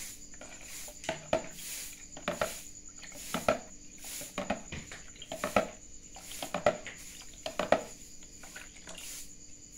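A metal ladle clinking and scraping in a plastic tub and against ceramic bowls as a raw blood mixture is scooped out: about seven short double clinks, roughly one a second, stopping near the end.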